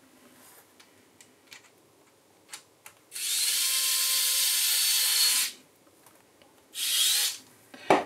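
Small cordless electric screwdriver running steadily for about two and a half seconds, then again briefly near the end, driving a 16 mm cross-head screw into an M3 nut through a 3D-printed plate and bracket. A few light clicks come before it.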